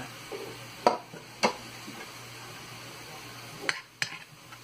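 Vegetables and minced pork sizzling in a stainless steel frying pan, with a few sharp clicks against the pan, two about a second in and two near the end, as cherry tomatoes are stirred in with a spatula.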